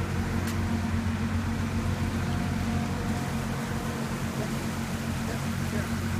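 Creek water rushing over rocks after a flood, with a steady low machine hum underneath.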